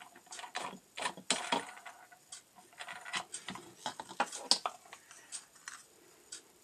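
Irregular clicks and short scrapes of an abrasive disc being handled and turned by hand on an angle grinder's spindle, with the grinder's motor not running.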